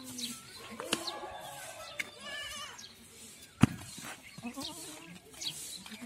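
Goats bleating, including a quivering, wavering bleat about two seconds in, with a sharp knock a little past three and a half seconds.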